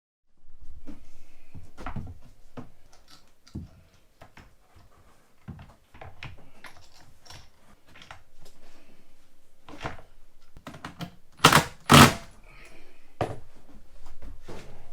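Irregular knocks, thunks and clicks of hands-on cabinet installation work, with two louder knocks about half a second apart late on.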